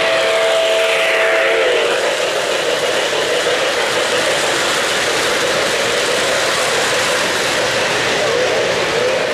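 An O-gauge model train running on three-rail track, with a steady rolling rumble from its wheels. The locomotive's sound system holds a three-note horn chord that bends and stops about two seconds in.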